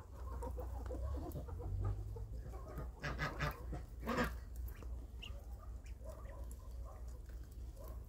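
Month-old ducklings calling as they peck at cucumber pieces, with the most prominent calls about three and four seconds in, over a low steady rumble.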